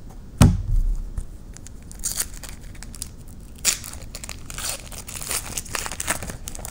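A thump about half a second in, then the crinkling and tearing of a foil trading-card pack wrapper being ripped open and handled, a long run of crackly rustles.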